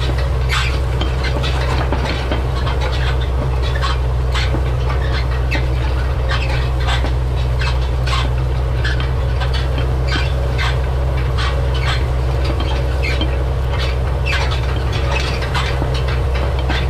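New Idea side-delivery bar rake being pulled through hay, its ground-driven reel and wheel gear rattling and squeaking irregularly several times a second. The Farmall 806 diesel tractor drones steadily underneath.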